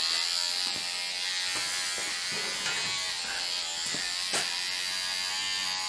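Electric hair clippers running with a steady buzz while cutting a man's hair, with a few faint clicks as the blades move through the hair.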